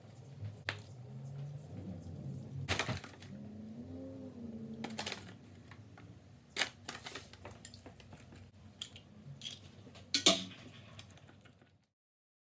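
Kitchen clatter of food prep: scattered clicks, clinks and knocks of spice jars, a spoon and a ceramic mixing bowl on a stone counter, the loudest a sharp clack about ten seconds in. The sound cuts off suddenly near the end.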